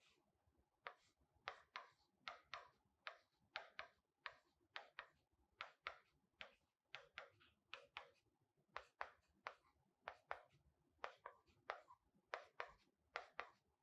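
Faint pen strokes on a digital writing board: short, separate scratchy strokes, roughly two a second, as letters are written.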